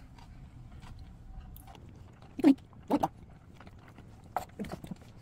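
Someone chewing a bite of gimbap, with two short, loud knocks about halfway through and softer ones near the end.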